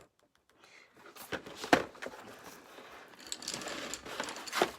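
Paper rustling and handling of drawing materials on a table, with a sharp tap about two seconds in and another near the end.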